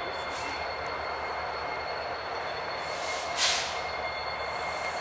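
Two EMD SD70M-2 diesel locomotives, each with a two-stroke 16-cylinder EMD 710 engine, run at low speed with a steady low engine rumble and a thin steady squeal from the wheels on a curve. A short hiss comes about three and a half seconds in.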